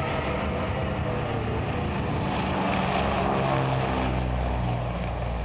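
Twin radial piston engines of a Catalina flying boat running at high takeoff power, a deep, steady propeller drone that swells about three seconds in and eases near the end.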